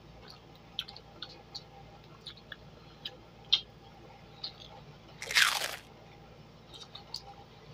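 Close-up eating sounds: scattered small crunches and mouth clicks of people biting and chewing food. A little past the middle comes one loud rushing burst of air lasting about half a second.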